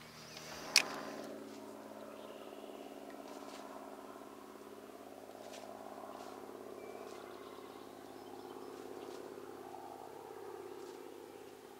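A sharp click about a second in, then a steady low motor hum that swells and fades slightly.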